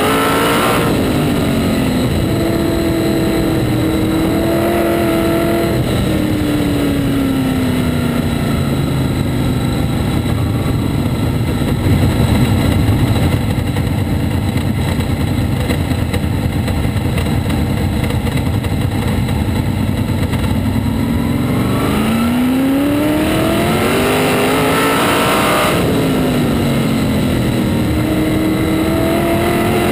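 Onboard engine of a winged open-wheel race car at racing speed. The revs drop just after the start and again about six seconds in, run under a dense rumble through the middle, and climb for several seconds about three quarters of the way through, drop sharply, then climb again near the end.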